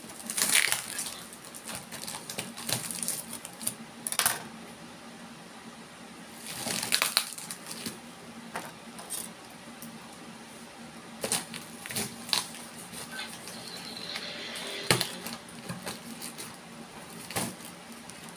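Scissors clicking and snipping through packing tape and cardboard in scattered, irregular strokes. Between them come a few short rustles of cardboard and plastic wrap being pulled open.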